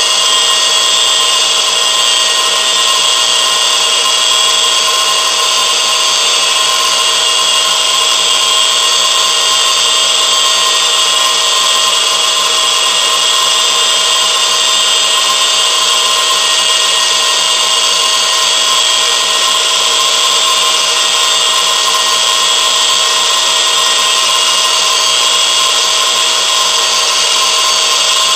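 A motor-driven machine running steadily: an even whine made of several steady tones over a hiss, with no change in pitch or level.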